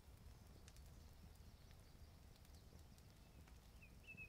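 Near silence: faint outdoor ambience with a low rumble and a few faint ticks, and a bird giving a couple of short chirps near the end.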